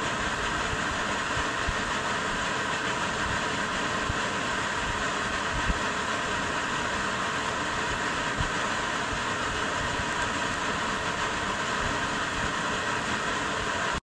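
LifeSmart LS-1000X-6W-IN six-element quartz infrared space heater with its fan running: a steady, even whoosh of air. A couple of faint low knocks come around the middle.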